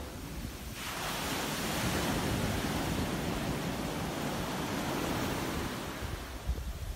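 Surf washing up a sandy beach. A wave's wash hisses in about a second in, holds, and eases off near the end, over a low rumble of wind on the microphone.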